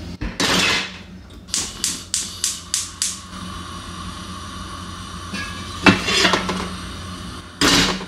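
A heavy lidded casserole pot is set down on a gas hob's cast-iron grate with a scrape. Then the hob's spark igniter clicks six times, about three a second, as the burner is lit, and the flame burns with a faint steady hiss. Near the end the pot is scraped across the grate onto the lit burner.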